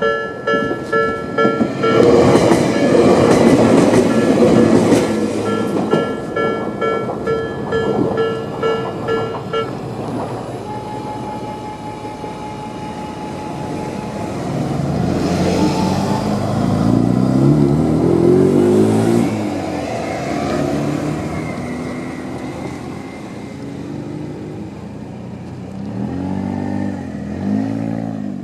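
Japanese level-crossing warning bell, an electronic Tobu-type tone, ringing in a rapid repeating chime about twice a second. A Jomo Electric Railway 700 series electric train runs loudly over the crossing for a few seconds, and the bell stops about ten seconds in. Afterwards road vehicles drive across, their engines rising in pitch as they pull away.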